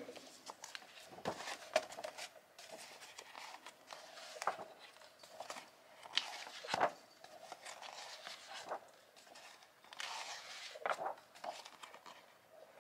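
Pages of a glossy magazine being turned and handled by hand: irregular paper rustles and light clicks, with louder page turns a little past the middle and again near the end.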